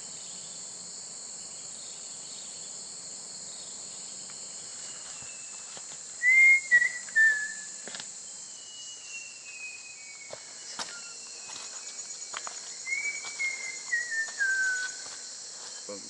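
Steady high-pitched drone of rainforest insects. Over it come three sets of whistled calls that slide downward in pitch: the loudest about six seconds in, another around eight to ten seconds, and a longer falling series near the end.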